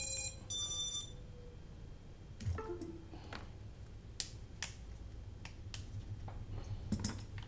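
Two short high-pitched electronic beeps in the first second, then scattered light clicks and taps of handling on a workbench.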